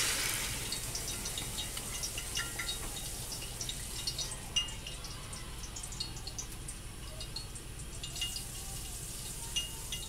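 Water poured from a glass measuring cup into a stainless stockpot of browned ground beef and rice, a splashing pour that trails off about a second in. After that come faint scattered small ticks and pops from the pot over a low steady hum.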